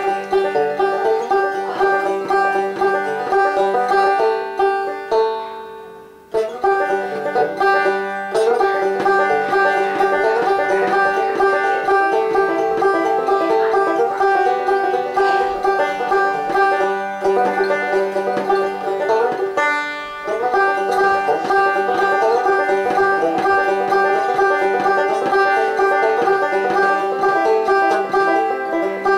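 Epiphone banjo picked solo in a loose chicken-picking style, a steady stream of quick plucked notes. About five seconds in the notes die away for a moment, then the picking starts again.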